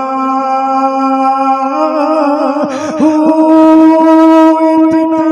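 A man singing a devotional Punjabi verse in long held notes through a microphone. About three seconds in, after a wavering ornament, he steps up to a higher note and gets louder.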